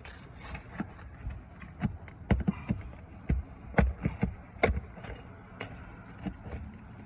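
An irregular run of sharp knocks and scrapes from a hand tool working roofing nails loose from under roof shingles, busiest in the middle.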